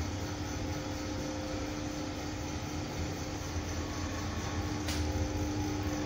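Slow traction Otis goods lift car running: a steady hum and low rumble, with a single sharp click about five seconds in.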